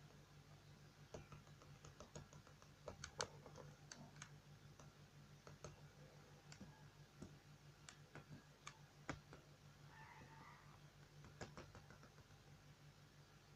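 Faint computer mouse clicks at irregular intervals, over a low steady hum.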